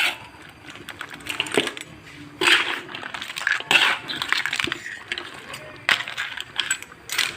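Metal utensils clinking and scraping in a cooking pan, with about half a dozen sharp clinks spread over several seconds.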